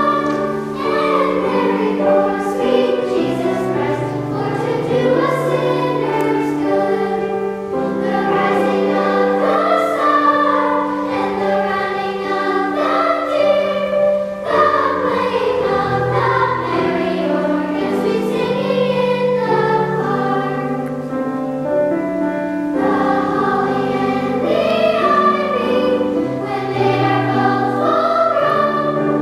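A girls' choir singing in parts, with piano accompaniment holding low notes underneath.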